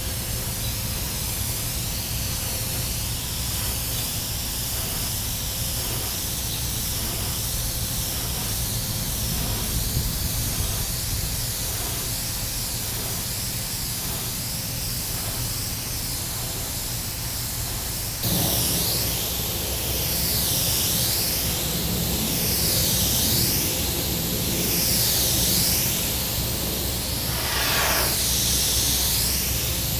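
Iwata airbrush spraying: a steady hiss of air. About two-thirds of the way through it grows louder and brighter, then swells and fades every couple of seconds.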